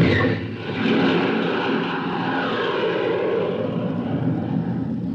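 Matador missile launching at the end of the countdown: a sudden blast, then a steady engine roar that slowly tapers off.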